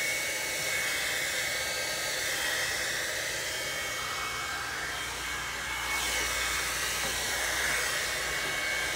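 Revlon One-Step hair dryer and volumizer hot air brush running steadily on its low heat setting as it is drawn through hair: a blowing rush with a thin, high whine.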